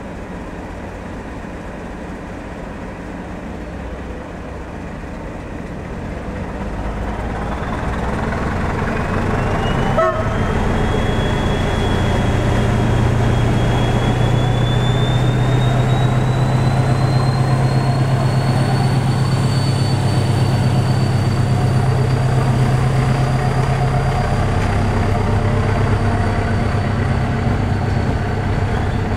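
PKP SU42 (Fablok 6D) diesel locomotive's engine opening up to pull a passenger train away from a standstill. A deep engine rumble builds over the first ten seconds and then holds heavy and steady, while a high whine climbs about ten seconds in and stays.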